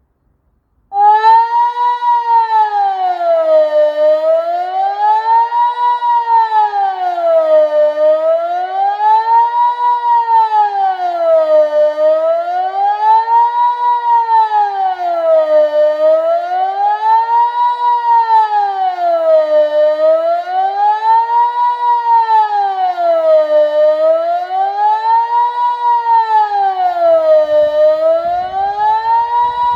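Delta 8 civil-defence siren, driven by an AT 1000 controller, starting about a second in and wailing in a steady rising-and-falling tone, one rise and fall about every four seconds. This is the Swiss general-alarm signal sounded for the annual siren test.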